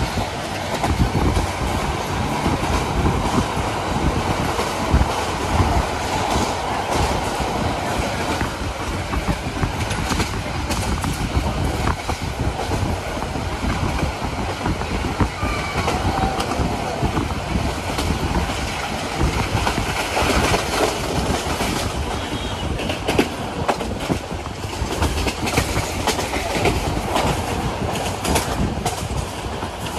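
Passenger train running at speed, heard from inside the carriage: a steady rumble with wheels clattering over the rail joints.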